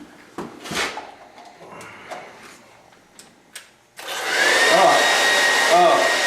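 Revlon 1875-watt hair dryer switched on about four seconds in: a sudden steady rush of blown air with a motor whine that climbs and settles to a steady pitch. Before it, a few light clicks.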